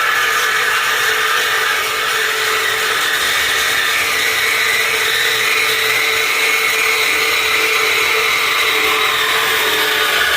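A power tool running continuously, with a steady whine whose pitch drifts slightly up and down under changing load.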